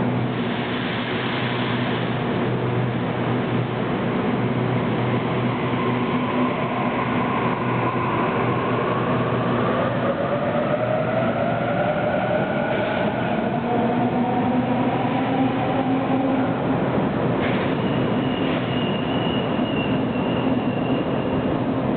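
Sydney Waratah electric double-deck train pulling out of an underground platform: a steady hum, then the traction motors' whine rising in pitch as it gathers speed. A thin high squeal comes near the end as the cars run out.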